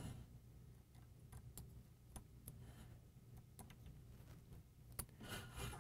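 Near silence broken by faint, sparse metal clicks and ticks of a small hex driver working the set screws in the ring that holds the microscope's tube-lens tube, with one sharper click about five seconds in.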